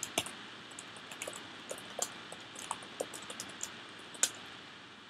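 Typing on a computer keyboard: irregular keystroke clicks as a line of code is entered, over a faint steady hiss.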